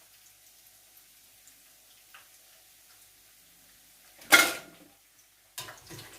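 A metal kitchen utensil clanking against a pot or dish: one loud ringing clank about four seconds in, with lighter knocks near the end and a faint click before.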